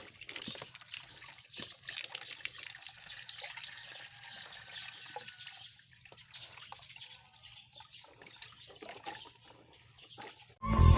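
Turmeric roots being washed by hand in water: uneven splashing and dripping with small clicks and knocks. Loud music comes in near the end.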